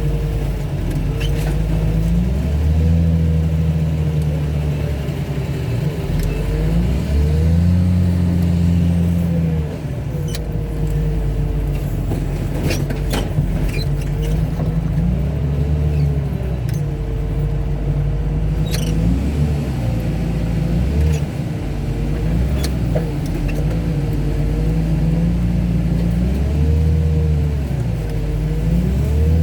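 Heavy equipment's diesel engine working under hydraulic load, its speed rising and falling every few seconds, with a higher whine arching up and down alongside it. Scattered sharp metal cracks and clanks.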